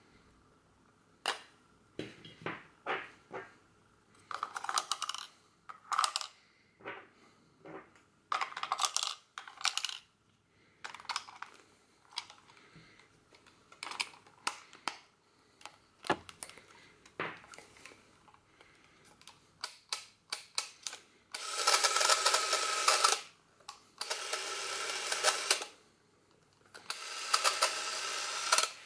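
A Braun Nizo S8 Super 8 camera's battery-powered motor running in three short whirring runs, each about one and a half to two seconds, in the last third. Before that come scattered clicks and scrapes from handling the camera's pistol-grip battery compartment and turning its cap with a coin.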